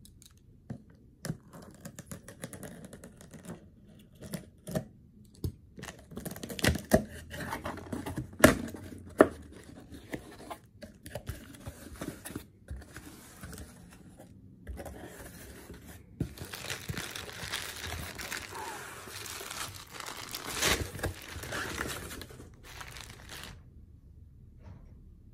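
A cardboard shipping box being unboxed by hand: packing tape torn off in a series of sharp rips and snaps, with cardboard flaps scraping open. About two-thirds of the way in this gives way to a longer stretch of denser rustling and crinkling as the jersey in its plastic bag is pulled out, then the handling stops near the end.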